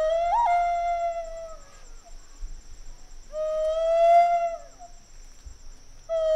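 Native American flute playing slow, long held notes: the first has a quick upward flick about half a second in and fades out, a second note swells and fades near the middle, and a new note begins near the end.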